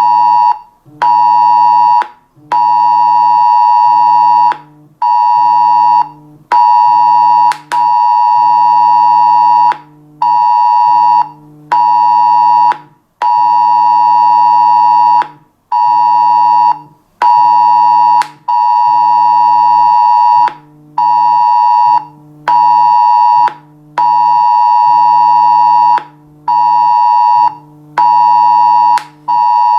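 Smartphone emergency alert tone from a Cell Broadcast test warning: a loud, shrill electronic beep sounding in on-off pulses of uneven length, some about half a second and some about two seconds, with short gaps between.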